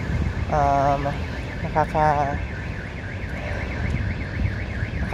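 A man's voice making two short wordless sounds, a drawn-out one and then a brief one, while he is out of breath from walking. A faint, steady warbling tone runs beneath.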